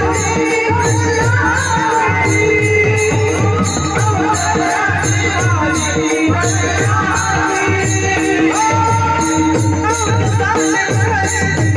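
Music: a voice singing over a steady drum beat, with rattling, tambourine-like percussion keeping time.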